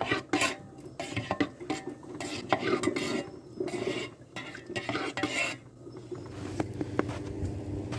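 Spoon and dishes clinking and scraping, like coffee being stirred in a mug, with irregular sharp clinks and knocks throughout.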